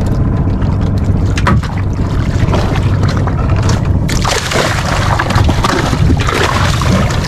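Outrigger fishing boat's engine running steadily. About four seconds in, a hooked skipjack tuna thrashes and splashes at the surface against the hull as it is hauled up on a hand line, in two loud surges of splashing.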